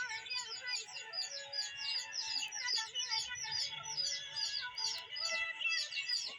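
Background music with a held, stepping melody, under rapid high bird chirps repeating about four times a second.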